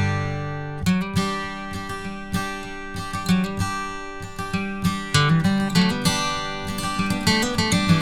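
Acoustic guitar music: plucked and strummed chords, with a brief drop about a second in before the playing resumes.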